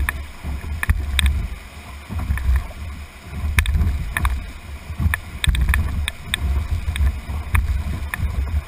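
Whitewater rushing around a canoe in a rapid: a heavy, uneven low rumble of water buffeting the microphone, with frequent sharp taps and slaps of water striking the canoe's deck and hull.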